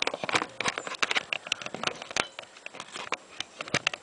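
Camera handling noise as the camera is wrapped onto a flexible GorillaPod tripod: irregular clicks, knocks and rubbing right at the microphone.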